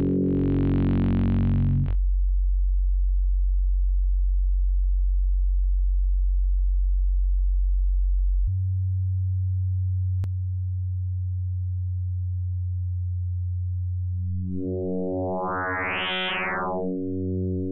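Zebra 2 software synthesizer holding one low note: a buzzy, wave-shaped tone for about the first two seconds, then a pure sine drone that steps up in pitch about halfway through. Near the end, frequency modulation from an FM oscillator is turned up and back down, so overtones swell in, brightening the tone, then fade away again.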